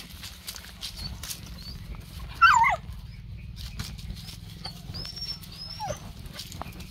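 A dog gives one short, loud, high-pitched cry that wavers and falls in pitch about two and a half seconds in, and a fainter short falling cry near six seconds, as the dogs play. Scattered light clicks and rustles of movement over dry leaves run underneath.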